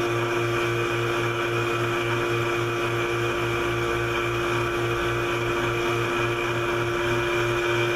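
Vacuum test stand's pump running steadily, a hum with a fast, regular pulse, pulling vacuum on a 4L60E valve body's actuator feed limit circuit.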